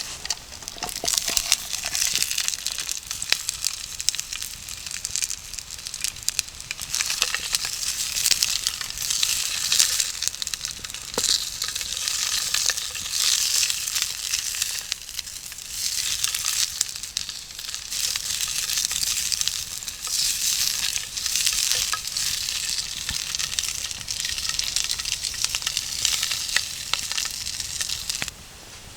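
Food sizzling and frying in a pan, a steady hiss with scattered sharp pops; it cuts off abruptly near the end.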